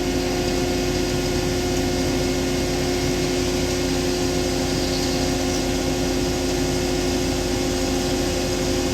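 Heavy diesel machinery running steadily: a constant engine drone with two strong steady tones over a broad mechanical hiss.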